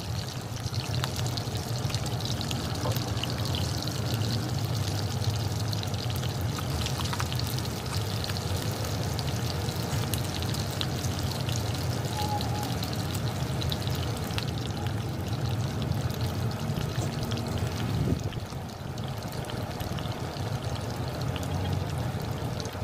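Pork belly and eggplant frying in oil in a wok: a steady sizzle full of fine crackles and pops, over a low steady hum.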